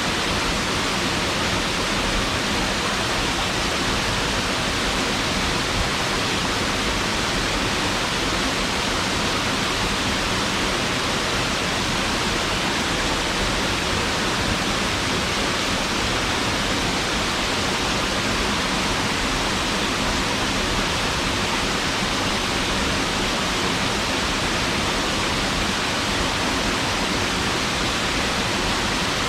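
Waterfall pouring steadily into its pool, an even, unbroken rush of falling water.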